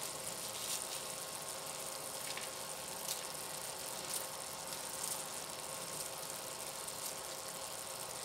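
Kitchen scissors snipping Vietnamese coriander (rau răm) leaves: several short, sharp snips about a second apart, over a steady low hiss.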